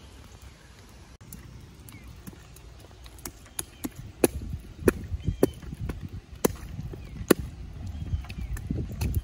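Footsteps of 8-inch Pleaser platform heels on wet, gravelly pavement and through a shallow puddle, heard from about four seconds in: a sharp click at each heel strike, with splashing, over a low rumble.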